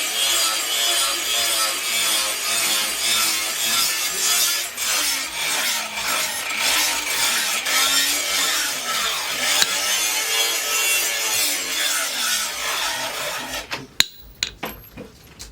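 Continuous abrasive scraping and rubbing on the knife, in the manner of hand sanding or filing, which stops abruptly near the end, followed by a few light clicks.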